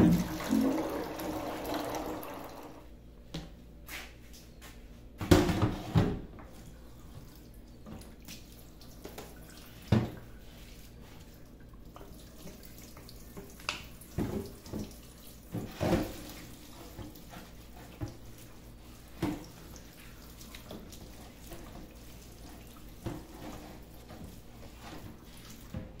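Kitchen tap running a thin stream into a stainless steel sink while a clear plastic refrigerator drawer is scrubbed with a sponge. Occasional light knocks and clunks, a few in a cluster about five seconds in and more around the middle, as the drawer is handled in the sink.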